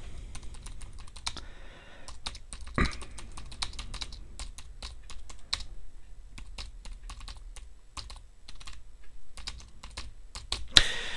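Typing on a computer keyboard: a run of irregular key clicks, with a louder clatter of keys near the end.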